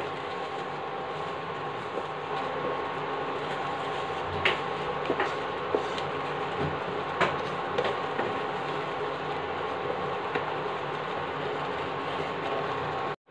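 Wooden spatula stirring and scraping a thick, mashed water-chestnut masala in a nonstick frying pan, kept moving so it doesn't catch on the bottom, with a few sharp taps of the spatula against the pan. Under it runs a steady hum with a faint whine.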